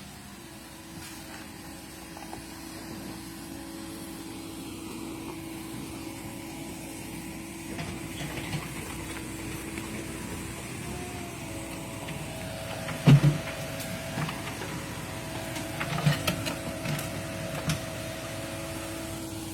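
Caterpillar 307E mini excavator running under load while digging: a steady engine and hydraulic whine, joined by a second, higher whine a little past halfway. A few sharp knocks and clanks come in the second half, the loudest about two-thirds of the way in.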